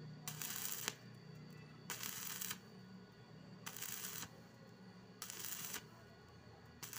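Stick (electric arc) welding on thin hollow iron tube: the arc crackles and sizzles in short bursts of about half a second, four of them about a second and a half apart, with a fifth starting at the very end. The arc is struck and broken again and again, the stop-start stitch method used on thin-walled tube.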